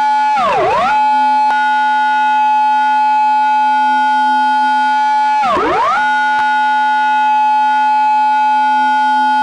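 Japanese police car siren, recreated as a sound effect in its intersection-entry pattern: a loud, high held tone that twice drops sharply in pitch and sweeps straight back up, about five seconds apart.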